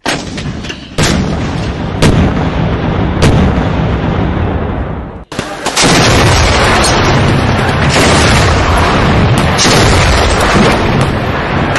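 Heavy gunshots, four of them about a second apart, each with a long rolling echo that fades. After a cut, a loud continuous din of gunfire follows, with sharper shots now and then.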